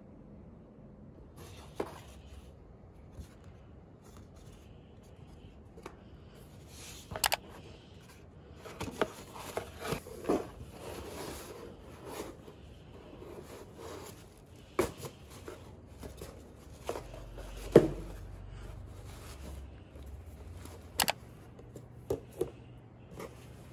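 Packaging handled by hand: a cardboard box, paper inserts and a cloth dust bag rustling and crinkling, with scattered sharp taps and clicks.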